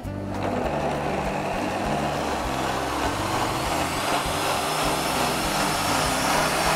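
Blender switched on and running steadily, pureeing cooked tomatillos and garlic in their cooking liquid into a green sauce.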